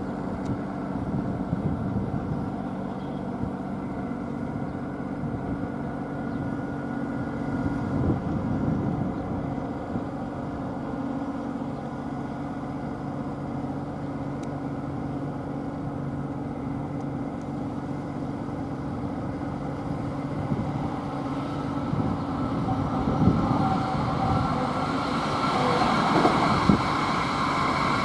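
Railway level crossing with its warning sounding steadily as a Hankyu limited express electric train approaches, the train getting louder over the last several seconds.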